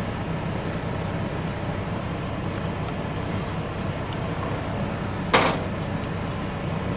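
Steady low mechanical hum inside a truck cab, with a single sharp knock about five seconds in.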